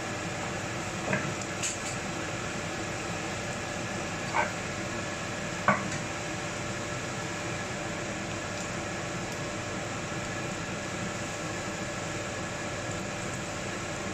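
Samosas deep-frying in a wok of hot oil: a steady sizzle, with a few sharp taps in the first six seconds, the loudest about halfway through.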